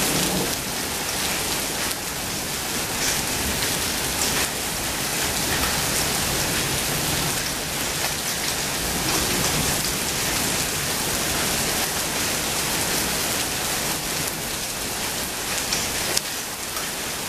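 Steady rain falling on a lawn and wet brick paving at the tail end of a hailstorm, with a few sharper ticks of drops striking near by.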